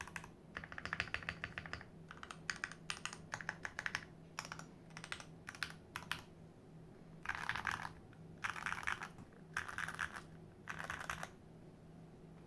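Typing on a modded Glorious GMMK Pro mechanical keyboard: runs of quick keystroke clacks in bursts, then, from about halfway, four longer, denser flurries of keystrokes with short pauses between them.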